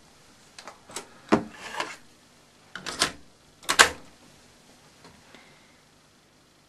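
A cassette being loaded into the front compartment of a 1977 Benytone MCD 3000 cassette deck: a run of sharp plastic clicks and clacks from the cassette door and the cassette, the loudest about four seconds in, then a few faint ticks.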